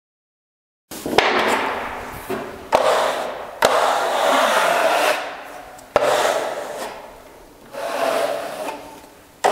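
Snap-off utility knife drawn along a metal spatula, slicing through wallpaper at a window reveal: about five scraping strokes, each starting sharply and fading over a second or two.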